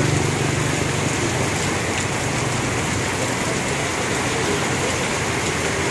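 Heavy rain pouring onto a wet paved road and parked motorcycles: a steady, even hiss of downpour.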